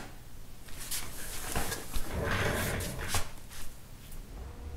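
Soft rustling with a few light clicks: hands and a small steel pick being handled on a workbench. It swells about a second in and fades near the end.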